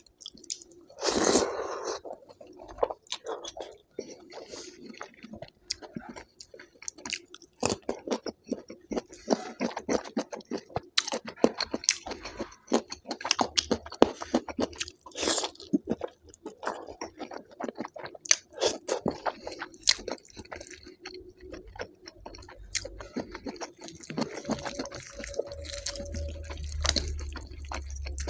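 Close-miked eating: wet squishing of dal and rice mixed by hand, then steady open chewing and smacking. About halfway through come crunchy bites of a fried aloo chop (potato croquette).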